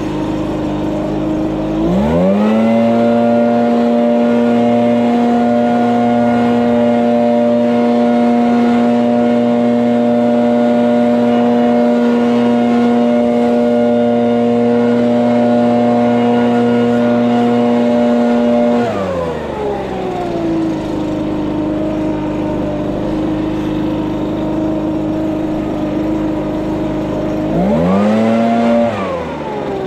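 Handheld leaf blower throttled up to full speed, held steady for about seventeen seconds, then dropped back to a lower speed, with one brief burst of full throttle near the end.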